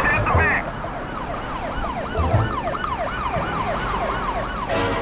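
Police siren sound effect wailing in a fast yelp, each rise-and-fall sweep repeating about three times a second, starting about a second in and cutting off suddenly near the end.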